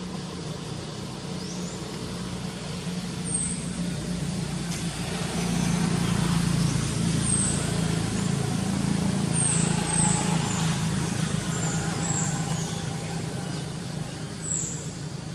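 A motor vehicle engine running steadily, growing louder through the middle and then easing off, as if passing close by. Short high chirps recur over it.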